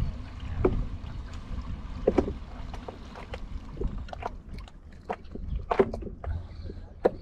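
Small waves lapping against a stand-up paddleboard, with a steady low rumble and irregular sharp clicks and small knocks.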